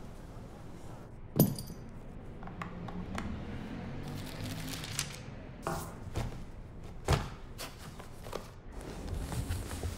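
Scattered knocks and clinks of tools and materials being handled on a shoemaker's workbench, over a low steady hum. The loudest is a sharp clink with a brief ring about a second and a half in, and a few more knocks follow over the next several seconds.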